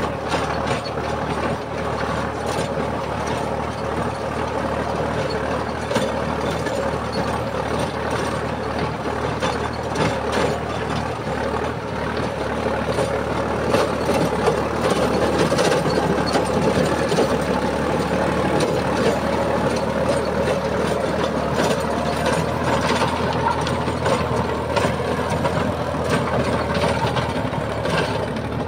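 Solis Yanmar 5015 tractor's diesel engine running steadily under load as it pulls a rotary tiller, the tiller's blades churning through grassy soil with a constant patter of small knocks and rattles.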